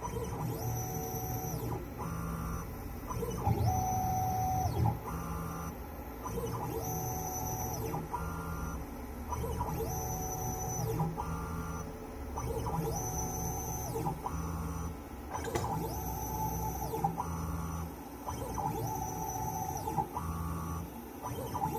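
CNC 3040 router milling a PCB with a V-bit: its stepper motors whine in short runs of tones that change pitch every half second to a second as the axes move from cut to cut, with brief rising and falling glides between moves.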